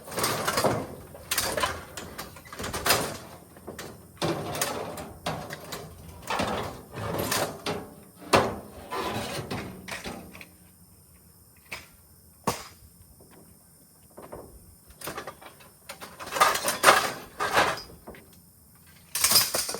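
Sheet metal of a clothes dryer clanking and rattling in a string of irregular bangs as it is pulled apart for scrap, with a quieter stretch of a few single knocks partway through before the clatter picks up again.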